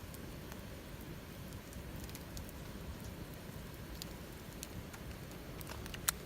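Wood fire crackling, with scattered small pops over a low steady rumble and one sharp, louder pop near the end.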